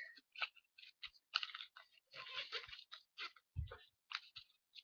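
A sheet of paper being folded over and over, rustling and crinkling in short irregular bursts, with a dull thump about three and a half seconds in.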